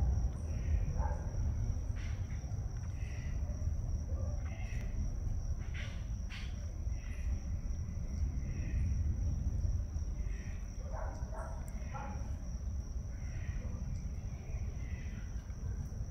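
Outdoor garden ambience: a steady high insect drone with short bird chirps every second or so, over a low rumble.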